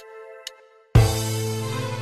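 Karaoke backing music: a held chord fading out with soft ticks about twice a second, a brief break, then the full accompaniment comes back in loudly with a heavy bass about a second in.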